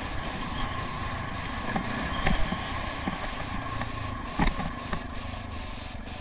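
Honda XR650R dirt bike's big single-cylinder four-stroke engine running as it rides over slickrock, with wind on the microphone. A couple of sharp knocks stand out, about two and four and a half seconds in.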